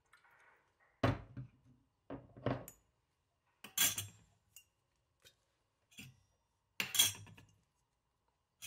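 A stainless steel measuring spoon knocking and clinking against a small stainless steel bowl: about seven or eight separate sharp metal strikes, the loudest about a second in, around four seconds in and about seven seconds in.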